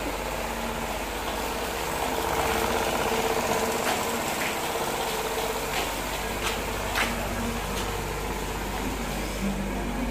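A motor running with a steady hum, with a few faint clicks.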